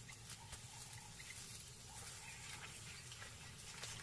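Faint rustling with small crackles in dry grass and undergrowth, over a low steady hum.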